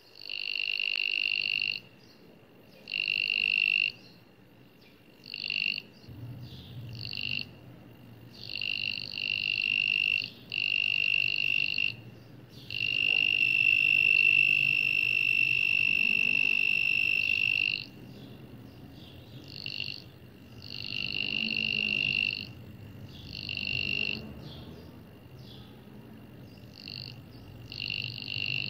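A small 5-volt piezo buzzer, driven by a 2N2222 transistor non-contact voltage tester, beeps on and off at one steady pitch in bursts of uneven length, with one long beep of about five seconds in the middle. It sounds when the tester detects the charge of a finger near its coiled-wire antenna.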